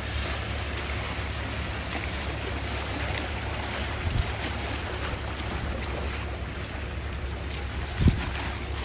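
Calm sea waves washing steadily, with wind rumbling on the microphone and two brief low buffets, about four and eight seconds in.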